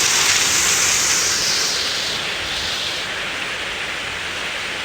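Heavy rain pouring down in a thunderstorm: a loud, steady rush that turns a little duller about two seconds in.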